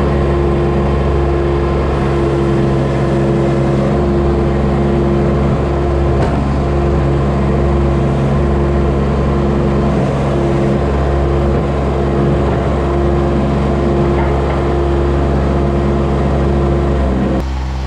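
Kubota D1105 three-cylinder diesel engine of a Baumalight TRL620D mini track loader running steadily at constant speed. Near the end it drops to a lower, slightly quieter note.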